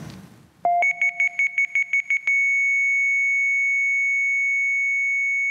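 Electronic beep tones from a campaign video's soundtrack played over the venue's speakers: a quick run of about nine high beeps at roughly six a second, then one long steady high tone.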